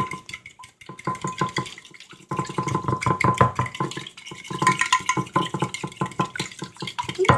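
A utensil beating French toast egg batter in a bowl: rapid, rhythmic clicking strokes against the bowl, quieter for a stretch between about half a second and two seconds in.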